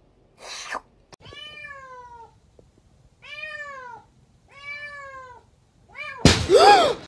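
A cat meowing: three drawn-out meows, each rising then falling in pitch, then a short call and a loud, harsh yowl near the end. A brief breathy noise comes about half a second in.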